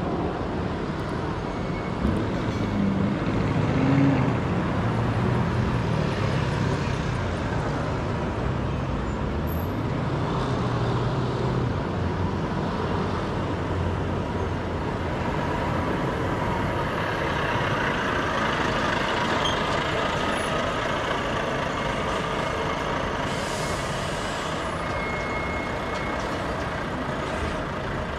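City street traffic: a steady mix of vehicle engines and road noise, with a heavier vehicle's low engine rumble standing out from about two seconds in until around twelve seconds.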